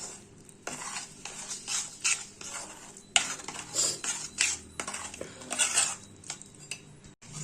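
A spoon stirring fine semolina into buttermilk in a vessel, scraping and clinking against the sides in irregular strokes, with one sharper knock about three seconds in.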